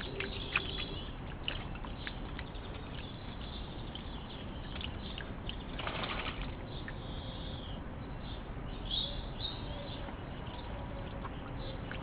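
A small bird bathing in a shallow bowl of water: scattered small splashes and drips, a short flurry of splashing about six seconds in, and a few brief bird chirps near the end.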